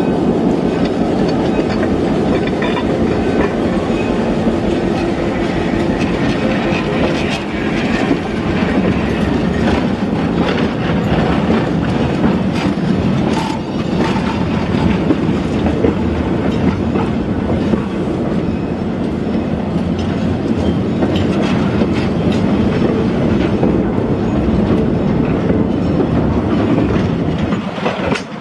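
Railroad cars rolling slowly past at close range: a steady rumble of steel wheels on rail, with the repeated clicking of wheels crossing rail joints.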